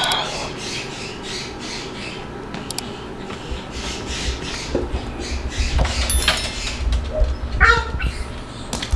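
Moluccan cockatoo giving short calls about six seconds in and again near the end, over a rapid rhythmic scuffling of about three strokes a second.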